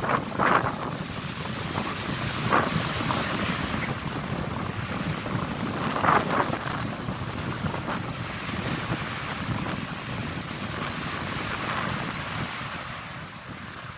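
Wind blowing across the microphone over small waves breaking and washing up the sand, with a few brief louder bursts.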